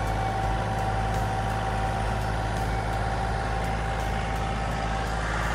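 Compact tractor's diesel engine running steadily as the tractor drives along, with a steady high whine that stops near the end.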